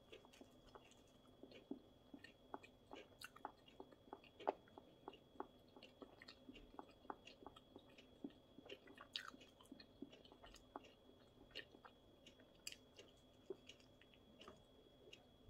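Quiet, close-miked chewing and biting of thin, crisp flammkuchen: irregular small crunches and mouth clicks, several a second. A faint steady high tone runs underneath.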